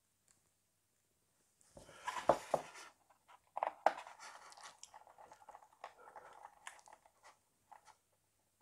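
Small screwdriver turning a tiny screw into plastic model-kit parts: a cluster of clicks about two seconds in, then a run of small clicks and scrapes as the screw is driven home.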